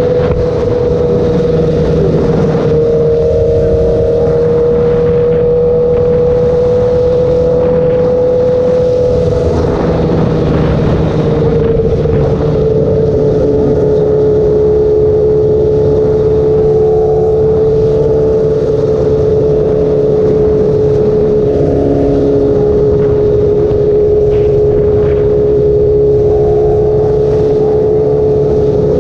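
2016 Honda CBR1000RR's inline-four engine, fitted with a Toce aftermarket exhaust, running at a steady cruise, heard from the rider's helmet over a constant rush of wind and road noise. Its steady tone drops a little in pitch about a third of the way through as the bike eases off, then holds.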